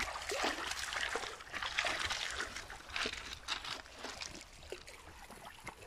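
Dogs wading and splashing through shallow water over pebbles, with water trickling and dripping; the splashing dies down near the end.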